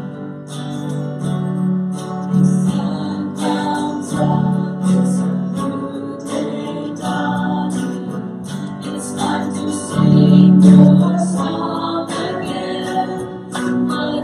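Church worship band playing a song: strummed acoustic guitar with singing.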